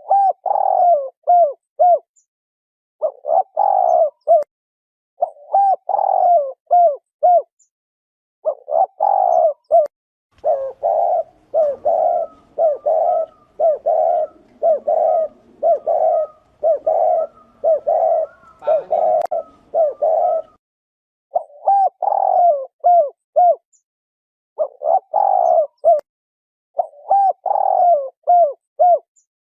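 Spotted dove cooing: repeated phrases of several short, low notes, each phrase about a second long with short pauses between. In the middle there is a stretch of near-continuous, overlapping cooing.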